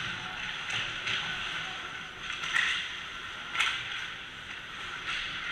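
Ice hockey play heard from the rink: skate blades scraping across the ice with a handful of sharp clacks, the loudest about three and a half seconds in.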